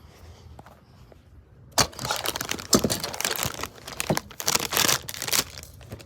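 Crinkly plastic wrapping being handled and torn open, starting suddenly about two seconds in as a dense, irregular crackling.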